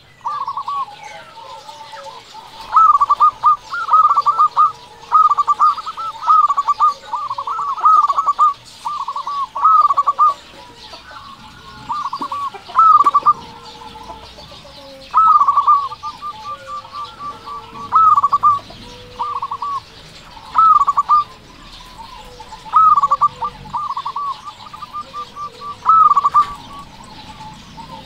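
Zebra dove (perkutut) singing: short phrases of quick, staccato cooing notes, repeated every one to two seconds, some ending in a fast rattling trill.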